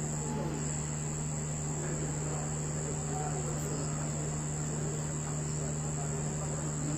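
Steady high-pitched chirring of night insects, such as crickets, unbroken throughout, over a low steady hum, with faint distant voices.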